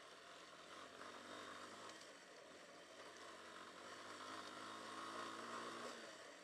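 Hartford VR150's 150cc single-cylinder air-cooled engine running at a steady note while riding over a gravel track, with tyre and road noise underneath. The engine note comes up about a second in and gets a little louder toward the end.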